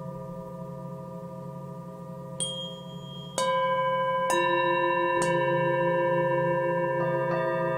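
Singing bowls ringing over a low pulsing hum. From about two and a half seconds in, about six sharp strikes each add new long ringing tones that overlap, and the sound grows louder after the second strike.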